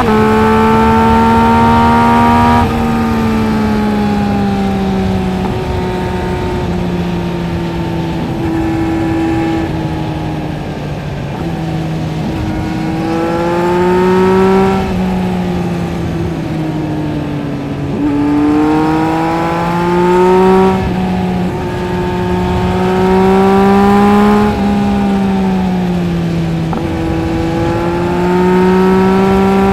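2023 Yamaha MT-09 SP's 890 cc inline-three engine through a LeoVince LV Race exhaust, running under way: the engine note climbs and falls several times as the throttle is rolled on and off. There are sudden drops in pitch about three seconds in and again near the middle.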